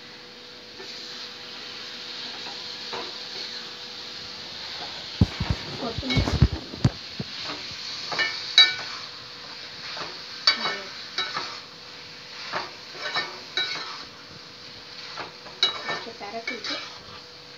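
Prawns with onions, tomatoes and spice powder sizzling in a kadai on a gas burner while a metal spatula stirs them, scraping and clinking against the pan again and again. A few heavier knocks come about five to seven seconds in.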